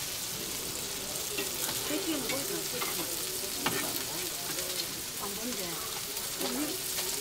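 Battered jeon pieces sizzling steadily in oil in a frying pan, with a few light taps and scrapes of a silicone spatula turning them.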